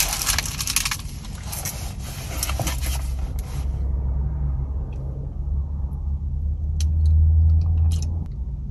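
Low, steady rumble of a car heard from inside, with loud crackling rustle at close range for the first three seconds or so, then a few small clicks.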